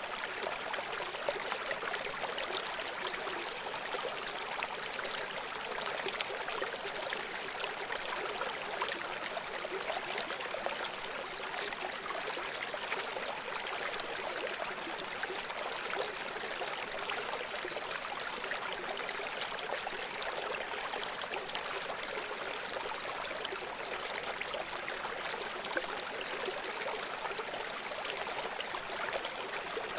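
A running stream: water flowing and splashing over stones, an even rushing and burbling hiss with fine trickling detail, steady throughout.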